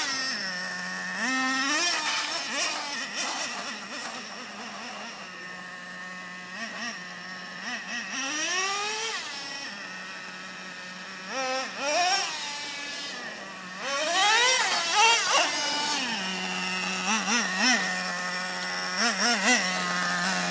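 Traxxas Revo RC monster truck's nitro two-stroke engine idling steadily, broken by several throttle blips that rise and fall in pitch. It fades as the truck drives off and grows louder as it comes back, with quick short blips near the end. The engine is new and still being run in.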